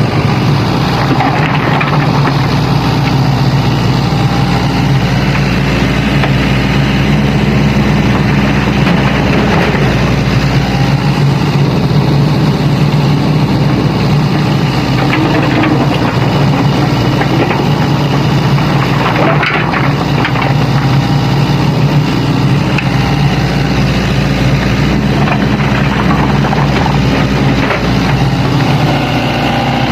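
Diesel engines of an excavator and dump truck running steadily as the excavator loads rock, with a brief clatter about two-thirds of the way through.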